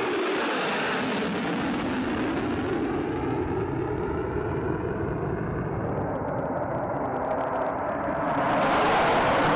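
F-35 fighter jet's engine noise as it flies past, a steady rushing sound that swells louder and brighter about eight seconds in.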